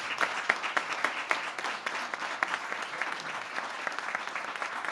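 A small group applauding: steady clapping from a dozen or so people.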